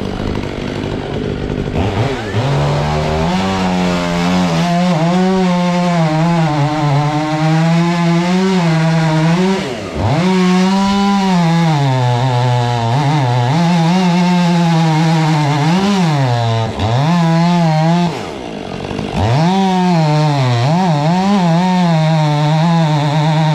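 Stihl 500i two-stroke chainsaw running at high revs and cutting into a tree trunk, its pitch sagging and recovering as the chain bites. The engine drops off briefly about ten seconds in and twice more near the end, each time revving straight back up.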